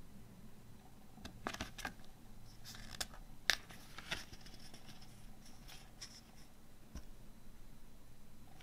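Paper pages of a CD booklet being turned by hand: a cluster of crisp rustles and paper snaps, the sharpest one near the middle.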